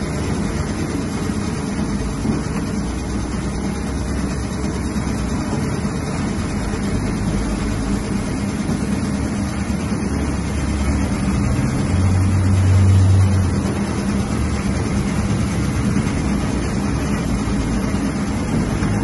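Electric meat dicing machine running with a steady motor hum while it cuts raw chicken into cubes; a deeper rumble swells briefly about twelve seconds in.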